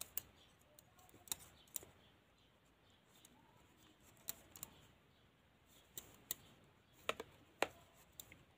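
Double-pointed knitting needles clicking against each other as stitches are worked on a set of five needles: faint, irregular sharp clicks.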